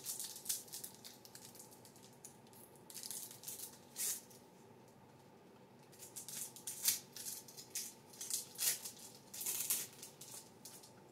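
Foil wrapper of a trading-card pack crinkling and tearing open in short, crackly rustles. A few come early, one or two around the middle, then a denser run of crinkling over the last few seconds.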